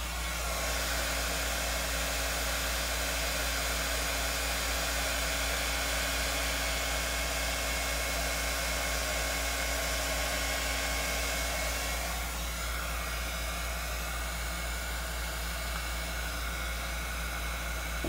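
Handheld hot-air blower running steadily over wet epoxy resin. Its sound shifts about twelve seconds in, where a faint steady tone drops out.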